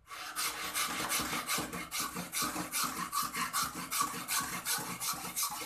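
Shinto saw rasp scraping down a clamped horn strip in rapid, regular strokes, starting suddenly.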